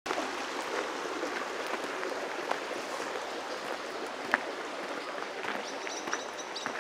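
Outdoor ambience: a steady rushing hiss with scattered light clicks, and a bird's quick high chirps repeating from near the end.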